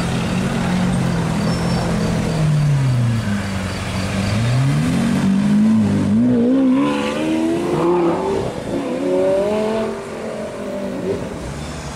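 Lamborghini supercar engine pulling away hard. Its note sinks over the first few seconds, then climbs steeply from about four seconds in, drops briefly near eight seconds as it shifts up, and climbs again.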